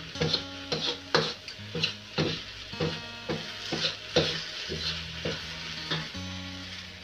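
Steel ladle scraping and clanking against a steel wok as fried kway teow noodles are stirred and tossed, the noodles sizzling; about two to three scrapes a second, stopping about six seconds in. Soft background music plays underneath.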